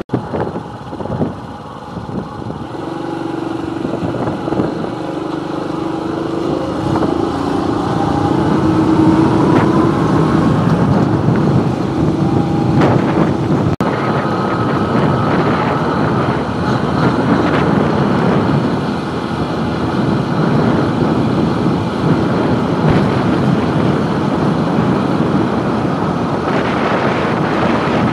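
Motorcycle engine running on the move, rising in pitch as it speeds up about eight seconds in, under a steady rush of wind noise on the microphone.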